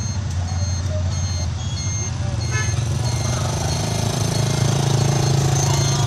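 A vehicle's engine idling as a steady low hum, with short high electronic beeps repeating about twice a second. More mid-range noise builds up from about three seconds in.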